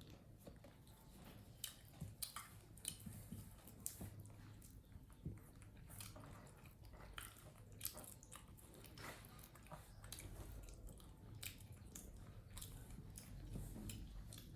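Faint, irregular chewing, with soft smacks and crunches of food being eaten.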